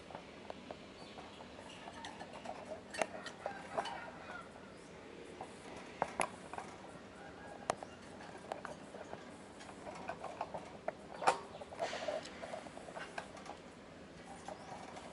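Sugar glider clambering about a wire cage: irregular sharp clicks and scrapes of its claws on the metal bars and the plastic food dish, bunched in two busy spells, the loudest click about eleven seconds in.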